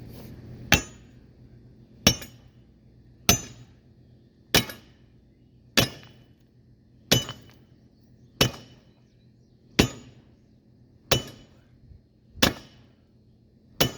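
Heavy hammer, most likely a spike maul, striking steel eleven times in an even rhythm, about one blow every 1.3 seconds, each with a short metallic ring. It is driving a fastener that is going in hard.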